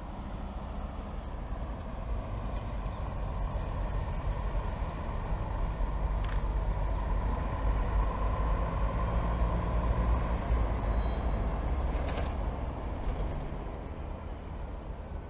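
City bus diesel engine running as the bus drives by, a low rumble that swells for several seconds and then fades away. Two brief sharp hisses or clicks sound partway through.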